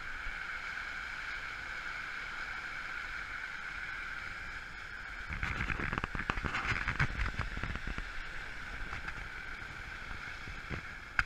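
Road noise inside a moving car on a wet, snowy road: a steady hiss of tyres. From about halfway through, for a few seconds, it turns rougher and louder, a crackling rush of the tyres running through slush.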